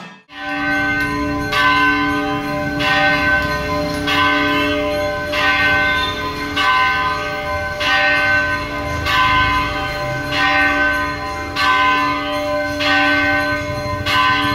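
Large Hindu temple bell rung during the puja, struck at an even pace of about one stroke every 1.3 seconds, each stroke ringing on into the next.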